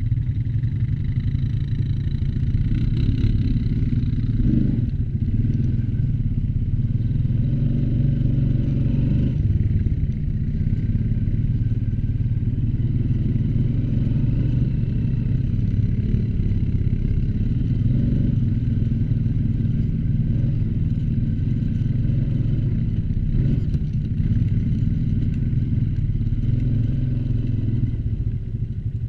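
ATV engine running while the machine is ridden: a steady, low drone.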